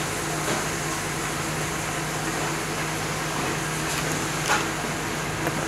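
Steady hum of a kitchen's ventilation fan with an even hiss, and a brief light knock about four and a half seconds in as a piping bag is laid on a tray.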